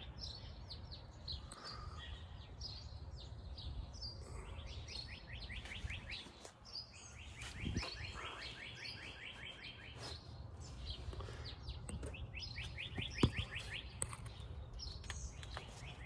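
Birds singing outdoors: a fast trill of repeated chirps that comes several times over. A few faint sharp knocks sound among them, the loudest one near the end.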